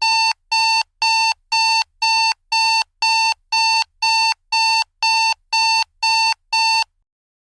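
Digital alarm clock beeping: a steady train of identical short electronic beeps, about two a second, that stops shortly before the end.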